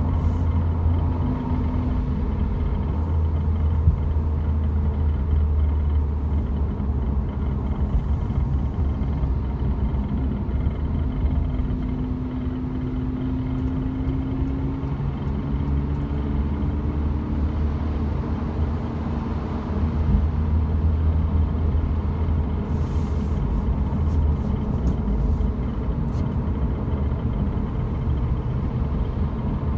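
Volkswagen Golf GTI Mk7 being driven: steady engine and road rumble, with the engine note climbing slowly about halfway through. There are a few faint clicks late on.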